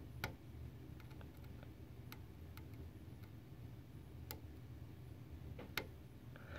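Faint, irregular small clicks of metal tweezer tips touching and prying at the spring contact pins of an Intel LGA 771 CPU socket while bent pins are being straightened, about nine ticks over a low steady hum.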